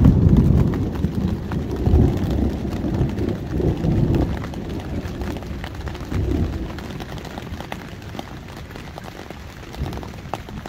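Thunderstorm: thunder rumbling low in rolling waves, loudest at the start and dying away over several seconds, with rain pattering throughout.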